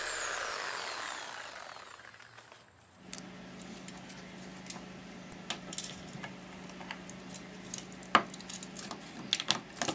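Light metallic clinks and knocks of scrap metal pieces from an air conditioner's fin coil being handled, scattered and irregular. They start about three seconds in, after a fading hiss and a brief near-silence, over a steady low hum.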